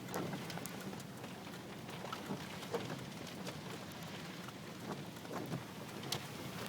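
Steady rain falling, with scattered light taps of drops.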